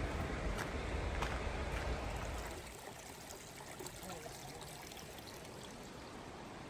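Footsteps on a trail with a low rumble for the first two and a half seconds, then steady trickling and flowing water of a small stream.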